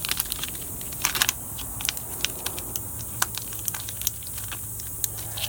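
Crinkling and crackling handling noises with many irregular small clicks as a sticky tire-plug strip is taken from its repair kit, over a steady low hum.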